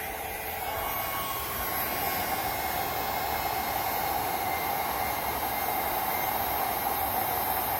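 Heat gun running steadily: a constant blowing hiss with a steady fan whine, as it heats a kayak's plastic hull to fuse patch plastic into it.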